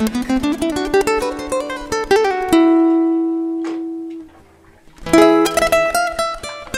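Background acoustic guitar music, picked: a run of quick plucked notes, one held note that fades away, a brief pause, then the picking starts again.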